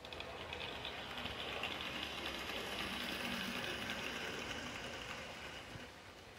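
OO gauge model train running past: a Tri-ang Class 37 diesel on Lima Deltic running gear hauling bogie iron ore wagons, its motor humming while the wheels clatter and tick over the rail joints. It gets louder as it passes and fades near the end.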